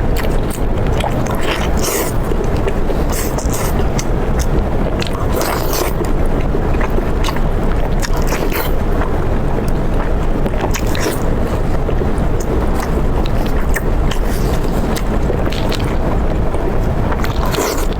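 Close-miked eating: irregular crunches and clicks of chewing and biting, over a steady low rumble of background noise.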